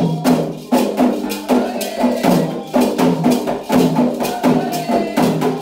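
Candomblé ceremonial music: a steady rhythm of sharp drum and percussion strikes, about three a second, with shakers, under sustained chanted singing.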